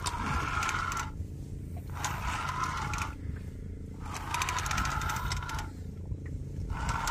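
Spinning reel being cranked in short spurts, a whirring with fine rapid clicking, four times with brief pauses between, over a steady low rumble.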